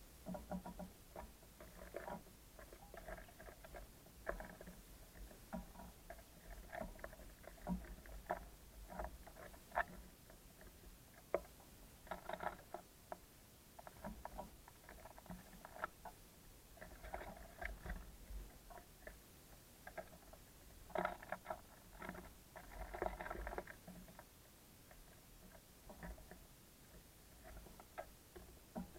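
Small birds pecking and hopping on a wooden bird feeder: irregular light taps and scratches, with several clusters of quicker tapping.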